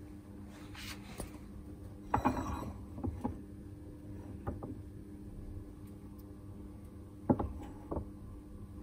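Scattered metal clicks and knocks as a 755-size brushed drill motor is set on a hand rack press and the ram is brought down onto its shaft to press the pinion gear on, the loudest knocks about two seconds in and near the end. A steady low hum runs underneath.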